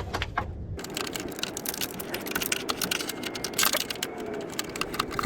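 Rapid, irregular clicking and rattling of hand tools and metal parts being worked, starting about a second in and going on throughout.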